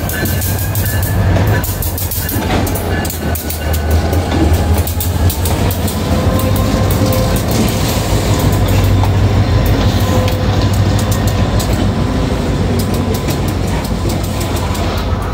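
Diesel freight locomotives rolling slowly past at close range: a steady low engine rumble with the wheels clicking over the rail joints. A faint steady squeal joins in about six seconds in.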